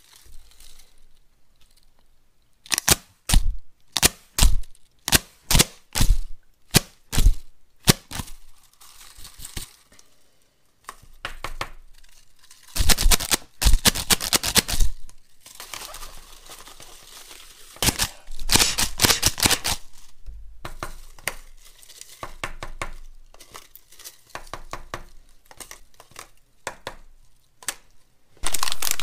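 Paper party blowers with foil fringes being handled: a run of about ten sharp clicks, then stretches of paper and foil crinkling and rustling. They are not being blown.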